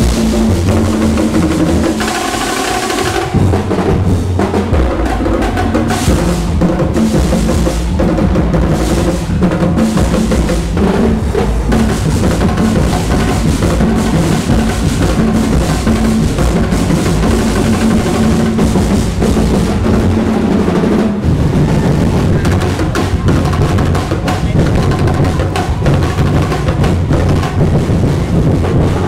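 Festival drum and percussion ensemble playing a loud, continuous rhythm for a street-dance performance.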